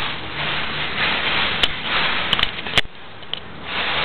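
Rustling handling noise with several sharp clicks, about a second and a half in and again between two and three seconds in.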